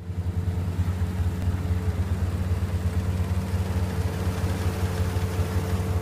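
Rice combine harvester's engine running steadily, a low even hum with a faint steady higher tone above it, fading in at the very start.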